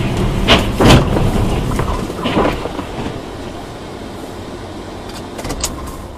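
Dashcam recording of a car driving in city traffic: steady road and engine rumble with a few sharp knocks, the loudest about a second in.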